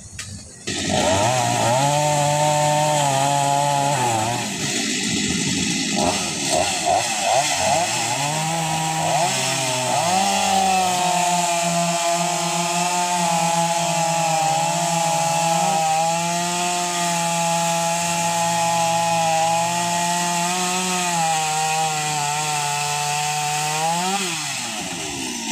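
Two-stroke chainsaw running at high revs while clearing a fallen tree. It starts about a second in, revs up and down unevenly about six to ten seconds in, then runs steadily under load until it stops near the end.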